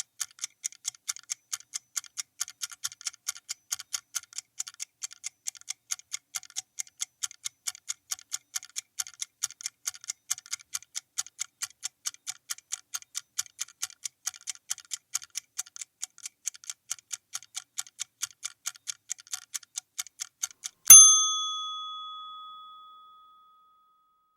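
Clock ticking sound effect, fast and even, counting down a timer. About 21 seconds in, the ticking stops and a single alarm bell strike marks zero, ringing out and fading over about two seconds.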